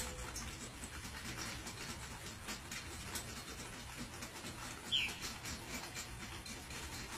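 A deer drinking milk, with faint, irregular sucking clicks over a low background hiss. A short, high bird chirp falls in pitch about five seconds in.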